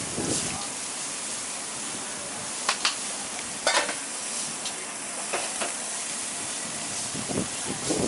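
Marinated chicken pieces sizzling steadily on a hot ridged grill, with a few short sharp clicks about a third and two-thirds of the way through.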